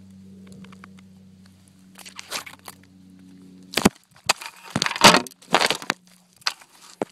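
A faint steady hum, then from about four seconds in a run of loud crunches and crackles: footsteps on a gravel and rock riverbank and brush rustling against the person and the phone.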